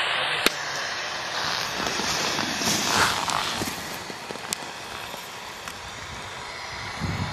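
Racing skis scraping and hissing over hard snow as a Super G racer carves through the gates, with a louder swell of scraping about three seconds in. A single sharp click about half a second in.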